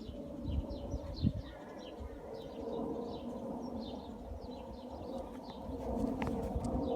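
Small birds chirping repeatedly in short, quick notes over a steady low background hum.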